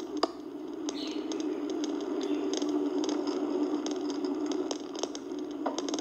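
Bicycle ride recording: a steady rolling road noise with scattered rattles and clicks from the bike and its mounted camera as it rides over the pavement, played back and picked up in a small room.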